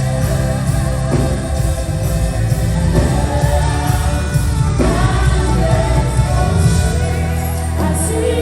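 Live gospel worship music: voices singing over a band with a heavy, steady bass.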